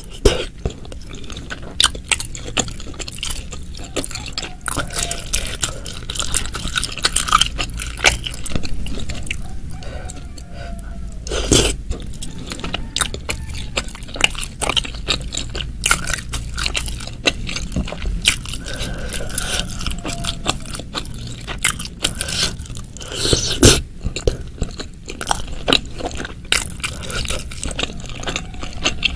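Close-miked chewing of shimeji and oyster mushrooms and meatball in thick spicy sauce: a steady run of small, irregular wet clicks, with two louder bursts, one near the middle and one toward the end.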